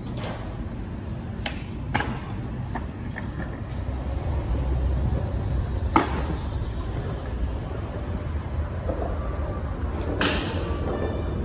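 Skateboards on concrete: a steady low rumble of rolling wheels, with sharp clacks of a board striking the ground about two, six and ten seconds in, the loudest at six.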